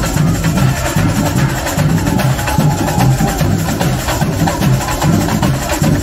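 Carnival samba percussion section (batería) playing a continuous driving rhythm: deep bass drums pulsing under sharp strokes of higher drums and percussion.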